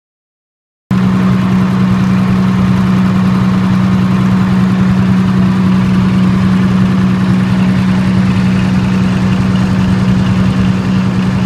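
Diesel generator engine running steadily on diesel alone, a constant drone with a strong low hum. It cuts in abruptly out of silence about a second in.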